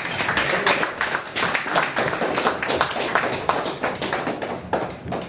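Audience applauding: many hands clapping in a dense, irregular patter that dies away near the end.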